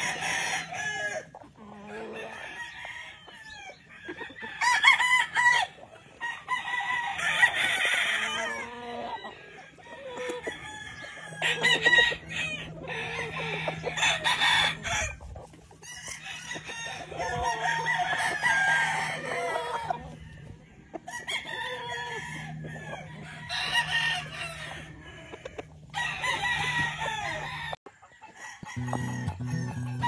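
Gamefowl roosters crowing again and again, one crow after another and some overlapping, from several birds around the pens.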